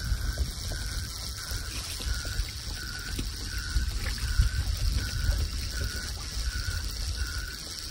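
Fishing reel being wound steadily, a mechanical ratcheting with a regular tick about every 0.7 s. Low wind rumble on the microphone.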